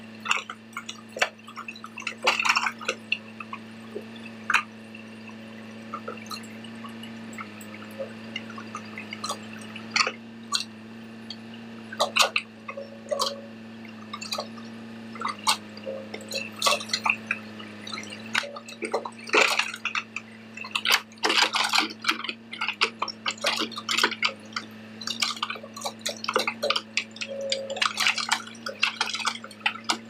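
Backhoe loader's diesel engine running steadily, with irregular sharp knocks and rattles of soil clods and stones as the bucket digs out the pile hole.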